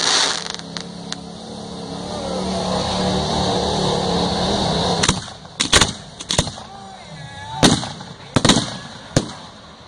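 Ground-fired fireworks: one sharp bang at the start, then a string of about nine sharp bangs over the second half as a cake launches its shots. In between, a steady engine drone builds up.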